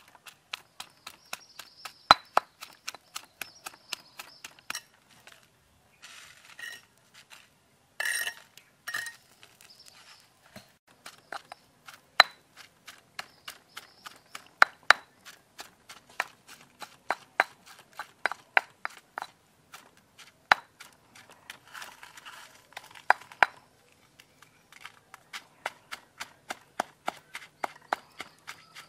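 Stone pestle pounding chili paste in a stone mortar: a run of sharp knocks, about two or three a second, with short pauses.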